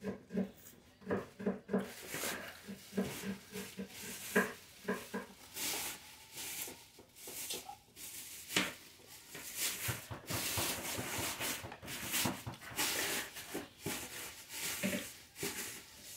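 Close-up eating sounds: chewing, with a run of short hummed 'mm' mouth noises at about three a second over the first five seconds. After that, a metal spoon clicks and scrapes on a ceramic plate, over and over.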